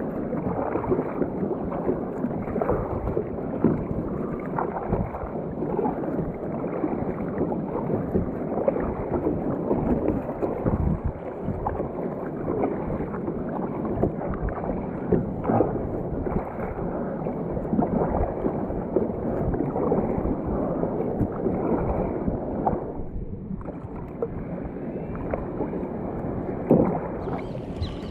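Kayak paddle blades dipping and splashing, with water sloshing along a sit-on-top kayak's plastic hull as it is paddled: a steady rush of water noise with many small splashes.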